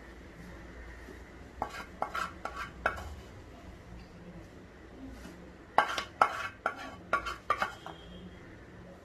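A utensil scraping and knocking against a stainless steel plate while spreading chocolate frosting over a cake: two runs of quick clinks, one about one and a half seconds in and a louder one about six seconds in.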